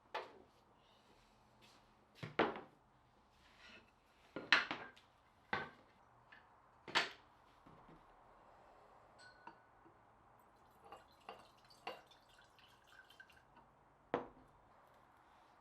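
Irregular knocks and clicks of tools or wood pieces being handled and set down in a workshop, a dozen or so scattered strikes with the loudest a little after two seconds, around four and a half seconds, at seven seconds and near the end.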